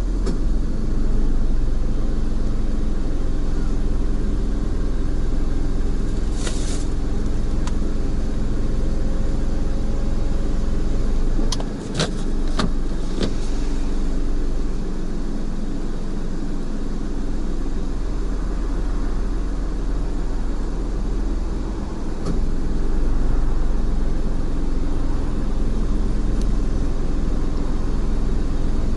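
Car engine idling steadily, heard from inside the cabin, with a few sharp clicks near the middle.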